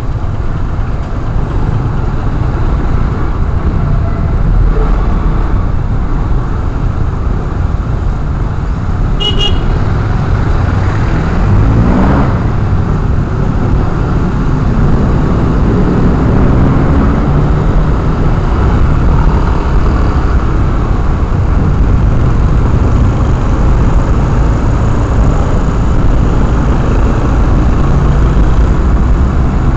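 Motorcycle ride in city traffic heard from a helmet camera: steady wind and road rush over the engine, with a short high horn beep about nine seconds in and an engine sweeping up in pitch a few seconds later.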